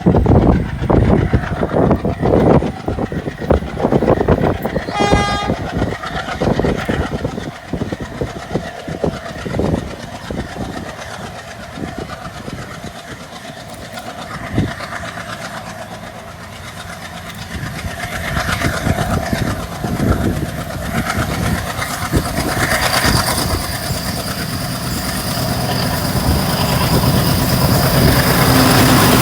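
ALCo diesel locomotive chugging hard with a rhythmic exhaust beat, and one short horn blast about five seconds in. The chugging then fades, and the train's wheels rumble and clatter over the rail joints, growing louder toward the end.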